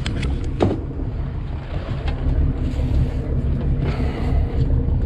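Steady low rumble of an offshore fishing boat at sea, with wind buffeting the microphone and a few small clicks.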